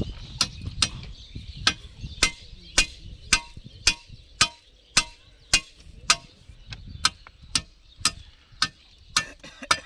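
Sharp metal taps, evenly spaced at about two a second, some with a short ring: a steel bar or hammer knocking at the thermite-weld mould and slag on a rail joint.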